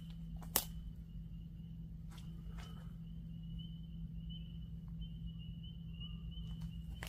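Night insects trilling steadily at one high pitch over a low steady hum. A single sharp click about half a second in, and a few faint clicks or snaps later.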